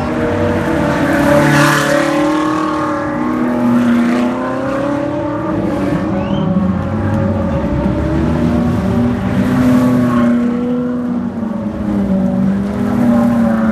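Race car engines running at low speed and revving, several at once, their pitches rising and falling and crossing one another as the cars pull away, with a Ferrari GT race car close by.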